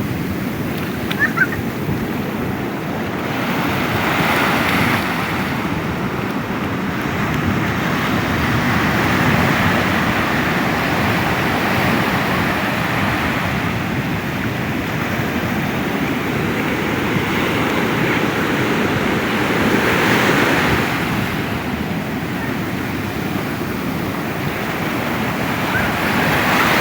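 Ocean surf: waves breaking and washing up the beach in a continuous rush that swells every several seconds as each wave comes in.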